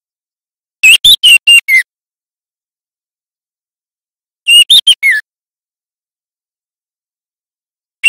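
Juvenile male white-rumped shama, a young bird learning its song, singing two short phrases about four seconds apart. Each phrase is four or five quick whistled notes, and the last note slides down in pitch. A third phrase begins at the very end.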